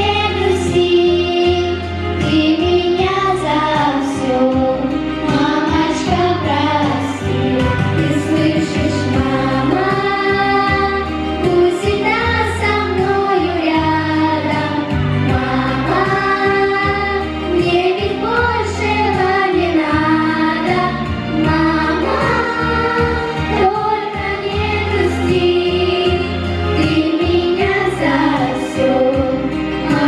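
A choir of young girls singing a song together into microphones over an instrumental accompaniment with a steady bass.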